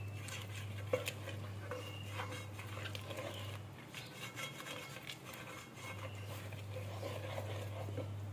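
A plastic spatula stirring and scraping a moist egg mixture in a metal pot, giving scattered light clicks and scrapes against the pot. A steady low hum runs underneath and drops out for about two seconds in the middle.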